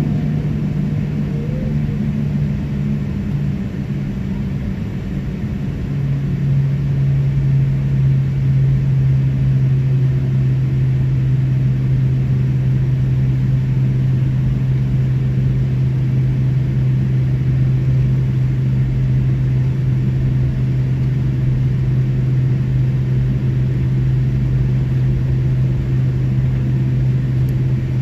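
Boeing 787-10's GEnx turbofan engines running at taxi power, heard inside the cabin as a steady low drone and hum. About six seconds in, the hum drops a little in pitch and grows louder, then holds steady.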